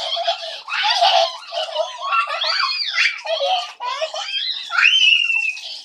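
Young children laughing and squealing, high-pitched shrieks that rise and fall in pitch several times.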